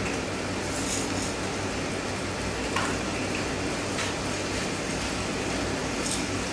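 Chicken fillets sizzling steadily in butter in a frying pan, with a few faint clicks.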